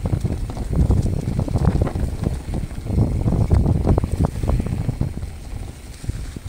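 Specialized Status 160 mountain bike riding down a leaf-covered dirt singletrack: a steady rumble of tyres and wind buffeting the microphone, broken by frequent short rattles and knocks from the bike over roots and bumps.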